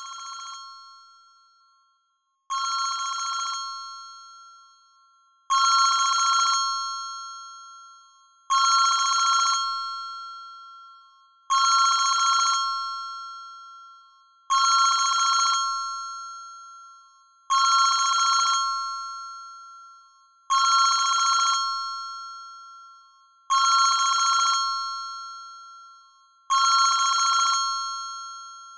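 ZTE WeGo (S155) phone playing a built-in ringtone through its speaker: a short bell-like ringing tone that repeats about every three seconds and fades away after each strike. The first couple of repeats are quieter, and the volume steps up to full over the first few rings.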